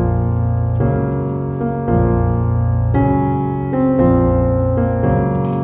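Background piano music: slow sustained chords that change about once a second.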